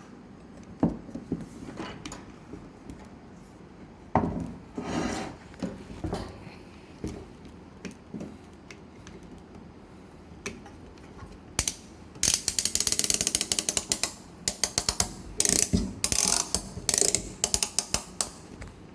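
Stainless steel band strap being tightened through its buckle with a ratcheting tool. Scattered metal knocks and rattles come first, then about twelve seconds in, long runs of rapid sharp ratchet clicks.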